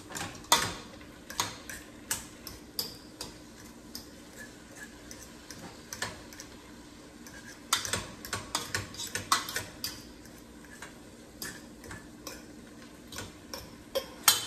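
Irregular metal clicks and taps of a fork against a stainless steel stockpot as sausage slices browning in it are turned, busiest about eight to ten seconds in, over a faint steady hum.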